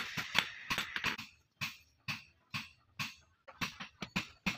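A hand hammer strikes red-hot steel on an anvil in a series of sharp blows, as a pickaxe head is forged. The blows come quickly at first, then slow to single strikes about every half second with short silences between, then pick up again near the end.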